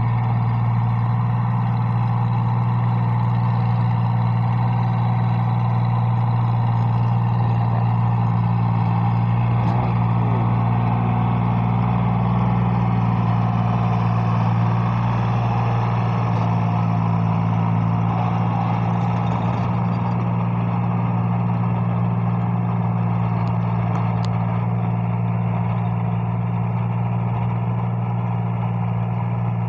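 Farm tractor engine running steadily under load while pulling a rotary tiller through the soil, a constant low hum that gets a little quieter in the second half as the tractor moves away.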